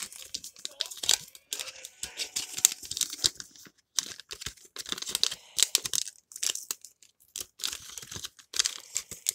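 Close, irregular rustling and crinkling in quick bursts, like material being handled right next to the microphone.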